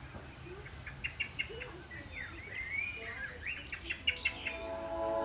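Small birds chirping and twittering, short repeated chirps and quick whistled warbles. Soft music with held notes fades in near the end.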